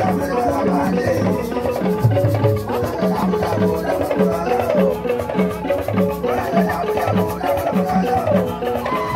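Live traditional African drumming: a troupe of large drums keeps a steady repeating low beat under lighter percussion, with voices singing over it.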